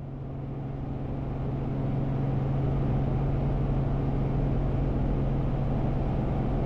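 Robinson R44 Raven II helicopter heard from inside the cabin at a hover: a steady drone with a constant low hum, swelling over the first couple of seconds and then holding level.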